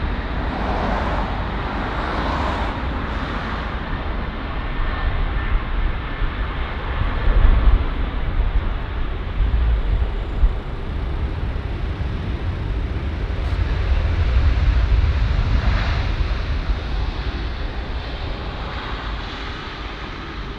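Boeing 777-200ER twin-jet landing: steady jet engine noise on short final, a brief loud peak around touchdown, then a swelling low rumble of reverse thrust on the rollout that eases off near the end.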